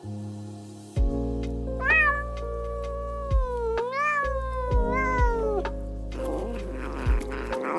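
Domestic cat meowing: a run of long, drawn-out meows that slide down and up in pitch, over background music.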